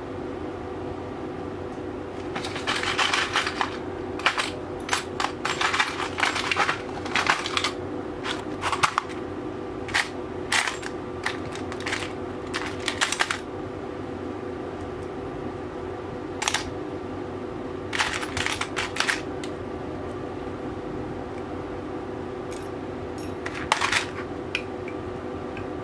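Metal hex keys clinking and rattling in a plastic box as a hand rummages through them. The rattling comes in bursts, dense for the first half, then a few short rattles with pauses and one last rattle near the end, over a steady background hum.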